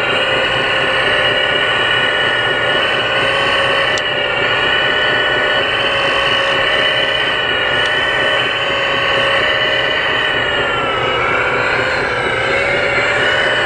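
Hydraulic pump of a 1/14 scale RC CAT 330D excavator whining steadily as the excavator digs and swings; the pitch dips and wavers near the end as the boom lifts a loaded bucket.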